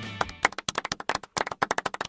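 Background guitar music stops about half a second in, and quick, uneven hand clapping follows.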